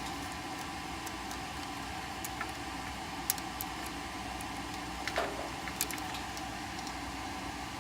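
A few light, scattered clicks and ticks of wire spade connectors being handled and pushed onto a furnace blower motor's speed-tap terminals, over a steady low hum.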